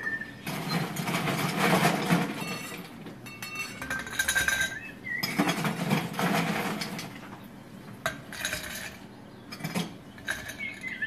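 Glassware, bar tools and ice clinking and clattering in several bursts as a cocktail is put together at the bar.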